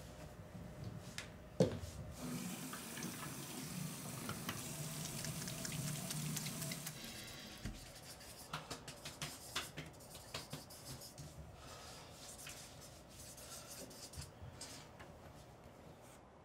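A sharp knock, then a bathroom tap running into the sink for several seconds, followed by many short strokes of a marker writing on a notepad.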